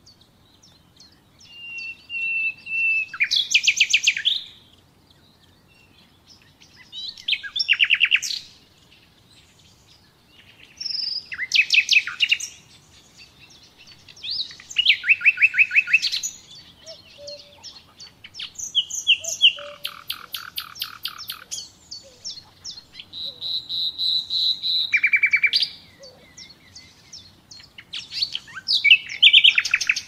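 Common nightingale singing: about seven separate phrases of fast repeated notes and clear whistles, each a couple of seconds long, with pauses between them.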